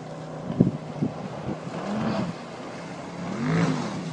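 Speedboat motor revving as the boat swings past close by, its pitch rising and falling twice. Two sharp bangs about half a second and a second in are the loudest sounds.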